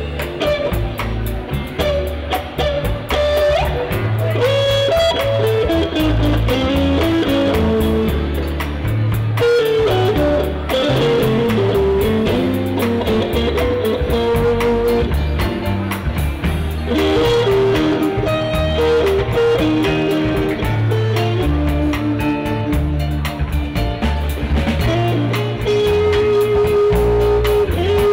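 Live band playing dance music led by an electric guitar, with a drum kit keeping the beat.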